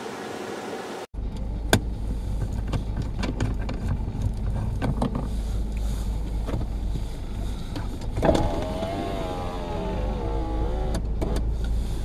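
Inside a car driving on a snowy road: a steady low rumble of road and engine noise with scattered clicks and knocks. A little over eight seconds in, a wavering whine is heard for about two to three seconds. In the first second a different steady sound with held tones cuts off abruptly.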